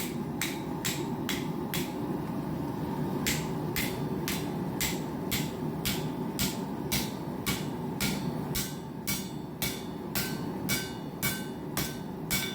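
Blacksmith's hand hammer striking hot steel on an anvil at about two blows a second, with a short pause near the start, while opening up the split half of the bar for a cross. A steady low rush runs underneath.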